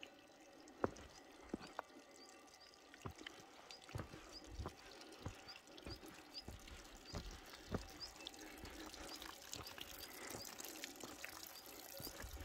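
A hiker's footsteps on a rocky mountain trail, one or two steps a second, over the sound of trickling water that grows louder in the second half.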